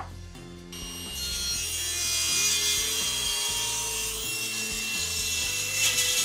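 Table saw ripping a walnut board along the fence: the blade's cutting hiss starts about a second in, holds steady, and grows louder near the end as the board is pushed through.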